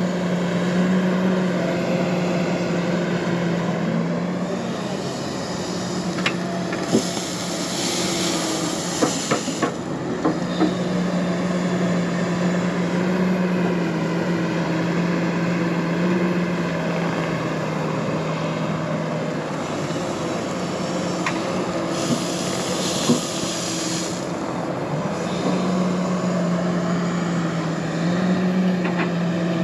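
Heavy diesel machine engine running steadily, its pitch stepping slightly up and down, with scattered metallic clanks and two hissing bursts of about two seconds each.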